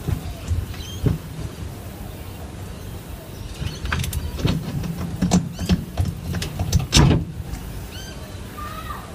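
Irregular clicks, knocks and scrapes of metal and plastic parts as a carburetor is worked loose and pulled off a Stihl FS 85 R brushcutter engine by hand, busiest from about four to seven seconds in.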